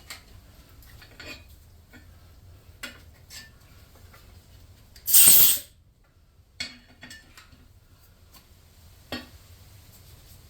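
Scattered light metallic clinks and taps of tools being handled, with one loud hiss of a spray about five seconds in, lasting about half a second.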